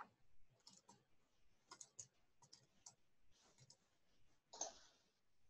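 Faint, scattered clicks from a computer mouse over near-silent room tone, with one louder, longer click about four and a half seconds in.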